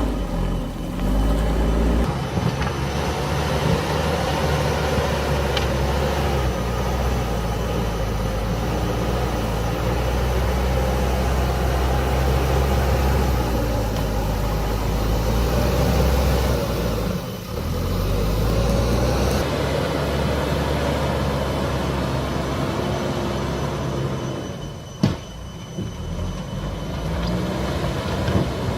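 JCB backhoe loader's diesel engine working, a heavy low drone whose speed rises and falls, easing off briefly twice. A single sharp knock sounds near the end.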